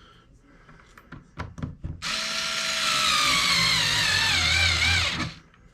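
A handheld power screwdriver runs for about three seconds as it drives a screw, its whine sliding down in pitch and wavering as it loads up, then stops. A few light clicks of parts being handled come before it.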